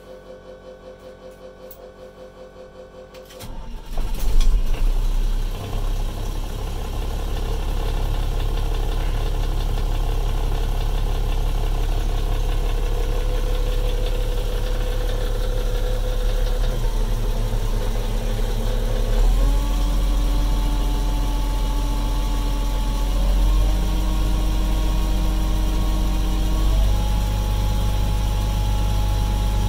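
International DT466 inline-six diesel cranking and firing up about three and a half seconds in, heard from inside the truck's cab. It then settles into a steady idle, and the pitch of its running shifts twice in the later part. Before it starts there is a faint pulsing tone.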